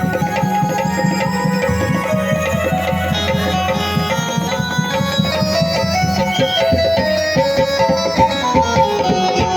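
Music with a fast, dense drum rhythm under a stepping melody.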